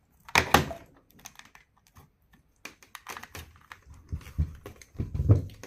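Scattered light clicks and knocks of a plastic power adapter and its cord being handled, with a louder cluster of clatter in the first second.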